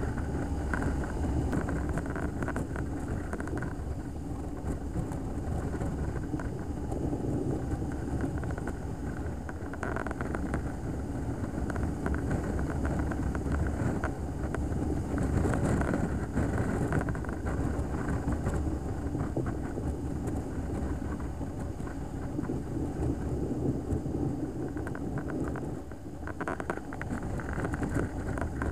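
Motorcycle running at road speed, its engine rumble mixed with steady wind rush on the microphone.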